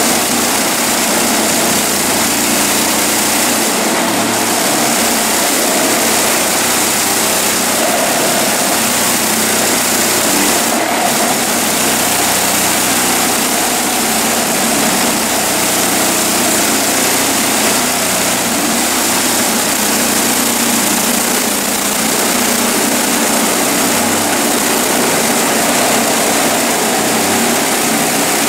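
Reciprocating saw running steadily as its blade cuts down through the screen panel of a flat-screen LED TV.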